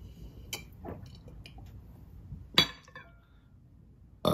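A child gulping water from a cut-glass tumbler, then a sharp clink of the glass with a brief ring about two and a half seconds in, and another knock near the end as the glass meets the table.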